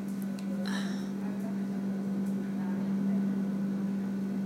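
A steady low hum, with one short sniff about a second in.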